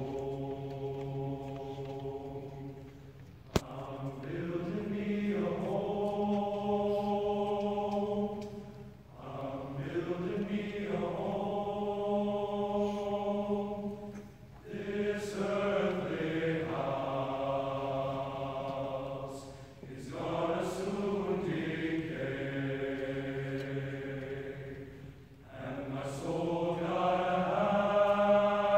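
Large mixed choir singing long held chords, in phrases of about five seconds with short breaks between them. A single sharp click about three and a half seconds in.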